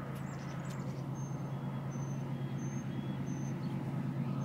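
A heavy engine running steadily: an even, deep hum with a noisy rumble over it. A few faint, brief high peeps sound above it.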